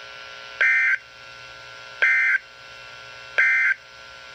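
Emergency Alert System (SAME) end-of-message signal on a weather radio broadcast: three short bursts of warbling data tones, each about a third of a second long and about a second and a half apart, marking the end of the warning. A faint steady hiss runs between the bursts.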